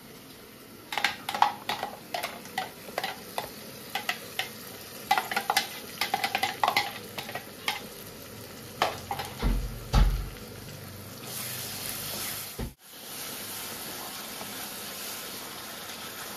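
Wooden spoon knocking and scraping tomato puree out of a mixer jar into a kadai of fried onions, a rapid series of sharp taps, with a dull thump about ten seconds in. Then the wet puree sizzles steadily in the hot oil as it is stirred.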